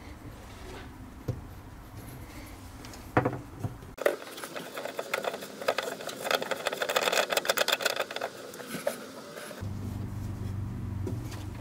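Black plastic sink drain fittings being handled and screwed onto a sink strainer: a few single knocks, then from about four seconds in several seconds of rapid plastic clicking and scraping that stops short of the end.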